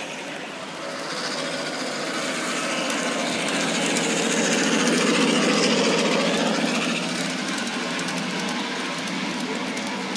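Miniature train running past on its track, its wheels rolling and clattering on the rails. It swells to its loudest about halfway through, then eases off.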